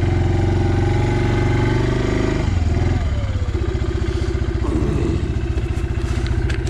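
Suzuki King Quad 400 ASi ATV's single-cylinder engine running while the quad pushes a snow plow blade. About three seconds in, the engine eases off to a lower, slower, steady beat.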